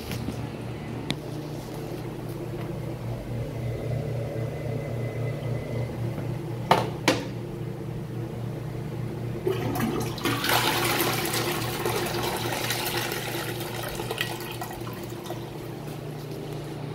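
Toilet being flushed: a rush of water starts about ten seconds in and slowly dies away as the bowl refills. Two sharp clicks come a few seconds before it, over a steady low hum.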